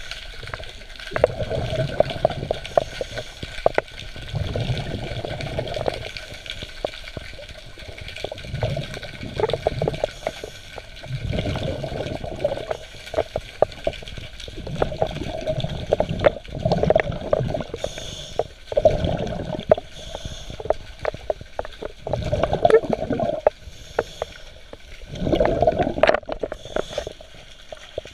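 Underwater bubbling and gurgling in surges every two to three seconds over a steady hiss: a scuba diver's exhaled regulator bubbles, heard through the camera underwater.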